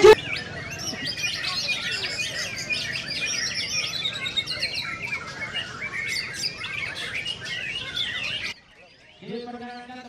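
Many caged white-rumped shamas (murai batu) singing at once, a dense overlapping chorus of quick chirps and whistles that cuts off abruptly near the end.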